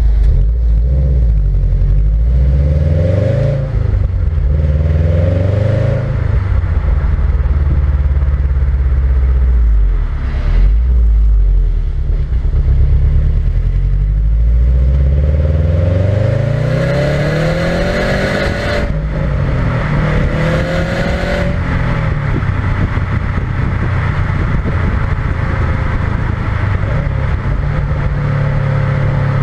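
Subaru WRX STI's turbocharged boxer four on its stock exhaust, driving. The engine note rises and drops back several times, then holds steadier near the end. Recorded from under the car, so exhaust and road noise are close.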